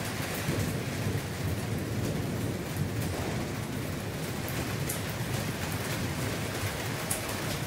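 Steady rain falling, with a low rumble underneath and a couple of sharp ticks in the second half.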